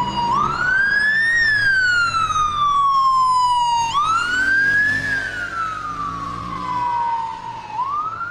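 Police car siren wailing: the pitch climbs quickly for about a second, then slides slowly back down, and the cycle repeats about every four seconds, three rises in all.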